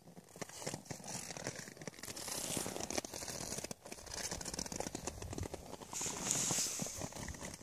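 A horse's muzzle rubbing and snuffling against the phone's microphone: close, crackling rubbing noise with many small clicks, and louder rushes of hiss about two and a half and six seconds in.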